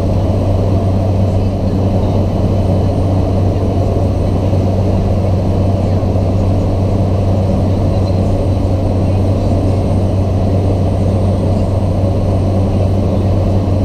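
Cessna 208B Grand Caravan EX's single turboprop engine and propeller droning steadily, with a strong, even low hum.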